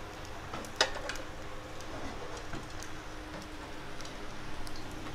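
Oil sizzling faintly in frying pans over a steady low hum, with a single sharp clink of the metal wok a little under a second in.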